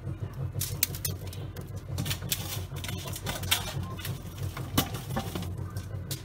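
Aluminium foil crackling and rustling in irregular small clicks as hands work seasoning onto a fish lying on it, over a steady low hum.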